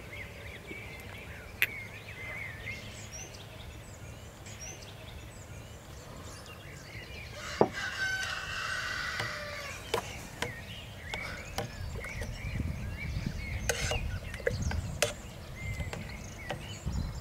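Chickens clucking and calling, with a louder call about halfway through. Several sharp clinks come from a metal ladle knocking against a stainless-steel stock pot as stew is stirred.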